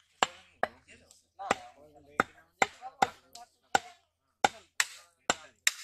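A butcher's large knife chopping beef on a wooden log chopping block: about a dozen sharp chops, roughly two a second and unevenly spaced.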